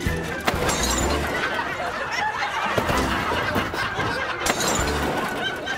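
A crash with shattering glass about half a second in, as a wheeled dumpster is rammed into a parked car, followed by a woman screaming.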